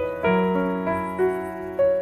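Background piano music: a slow melody of single notes over a held low note.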